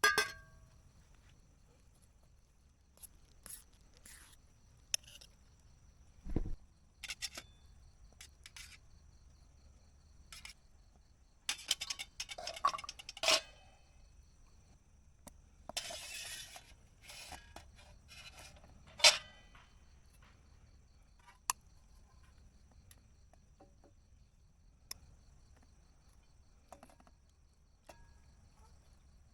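Irregular clinks and knocks of eating utensils against camping cookware and dishes during a meal, with short rattling clusters about halfway through.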